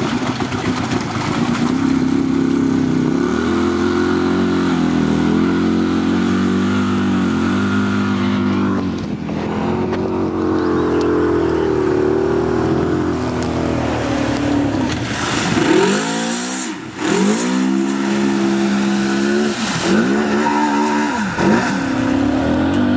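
Quad bike (ATV) engine running hard under load, its pitch rising and falling with the throttle. In the second half it revs up and drops sharply several times in quick succession.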